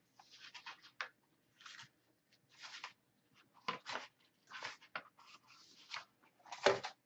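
Rustling and handling noise at a desk close to the microphone: a string of short, irregular rustles, with the loudest one near the end.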